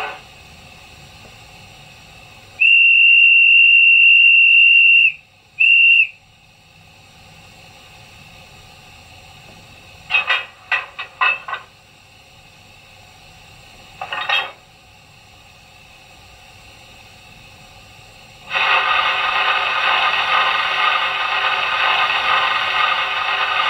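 Sound effects from a LokSound 5 DCC decoder played through the speakers of an HO-scale Union Pacific Big Boy model. First a long steam whistle blast and a short toot, then a run of metallic coupling clanks about ten seconds in and one more a few seconds later. Near the end comes a steady sanders hiss.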